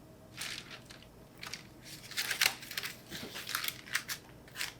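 Aluminium foil crinkling in irregular short rustles as a foil-wrapped springform pan is handled, loudest about halfway through.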